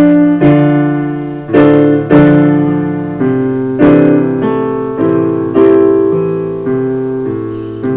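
Background piano music: slow chords, a new chord struck roughly every second and left to fade.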